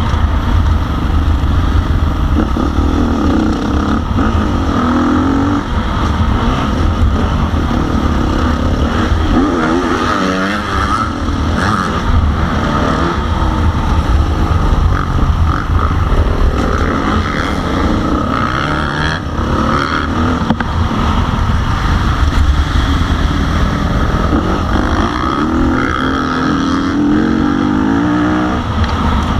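KTM 350 SX-F single-cylinder four-stroke motocross bike ridden around a dirt track, heard on board. The engine revs up in steps through the gears and drops back again and again.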